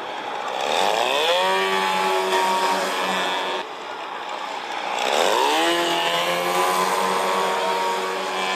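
Radio-controlled model biplane's small engine and propeller buzzing as it flies past low, its pitch dropping as it passes and then holding steady. The same thing happens twice, with an abrupt cut between the two passes.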